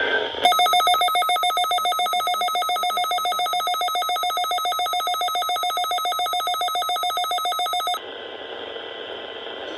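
Weather radio emergency alert tone: a loud, rapidly pulsing electronic alarm that starts about half a second in and cuts off sharply after about seven and a half seconds. It signals that a warning message follows. Faint radio hiss remains after it stops.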